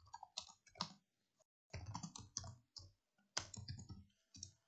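Faint typing on a computer keyboard: runs of quick key clicks with short pauses between them.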